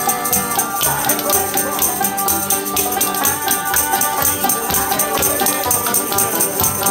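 Acoustic string band jamming: banjo and acoustic guitar over a washtub bass, with spoons clacking a quick, steady rhythm.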